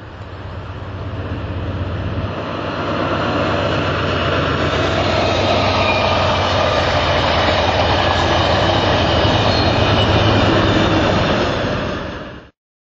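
Diesel-hauled Amtrak passenger train passing at speed: a loud, steady rumble and rush of wheels on rail. It grows over the first few seconds as the train comes close, holds steady, then cuts off abruptly near the end.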